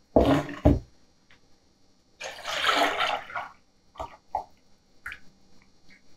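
A basin knocking twice on the wooden worktable as it is taken up, then liquid glaze slurry pouring out of the tipped basin into a stainless steel pot for about a second and a half, followed by a few light knocks and drips.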